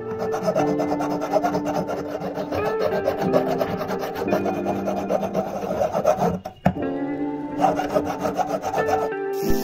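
Steel hand file rasping back and forth on the end of a copper bangle in quick repeated strokes, with a short break about two-thirds through. Background music plays underneath.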